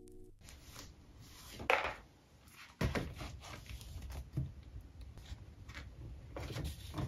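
A paper journal being handled on a desk: the cover is opened and the pages are turned, with paper rustling and a couple of sharp knocks, one about two seconds in and another about a second later.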